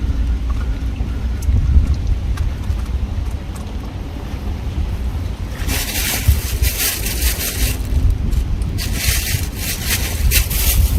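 Wind buffeting the microphone with a steady low rumble, and waves washing on the shore in two hissing surges, one about halfway and one near the end.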